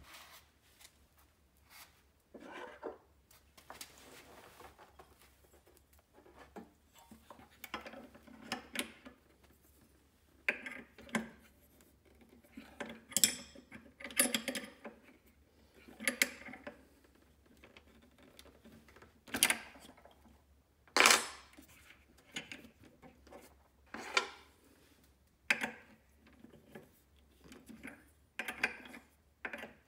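Steel spanner and tool rod clinking and scraping against the collet nut and spindle of a Bosch POF 1400 ACE router while its bit is adjusted. A string of irregular metallic clinks and taps, the loudest about 13, 19 and 21 seconds in.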